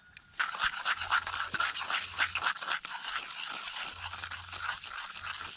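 Scallion oil sizzling and crackling in apple snail shells grilling over a fire. The dense crackle starts suddenly about half a second in. It is a sign that the oil has come to the boil and the snails are cooked.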